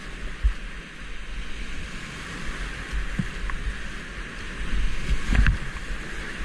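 Whitewater rapids rushing around a kayak's hull, heard close from the boat, with a few low thumps. The rush grows louder about five seconds in as the kayak runs into the big wave.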